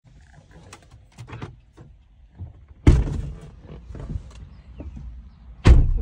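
Car passenger door being opened from outside: a loud thump about three seconds in and another near the end, with faint clicks and rustling between.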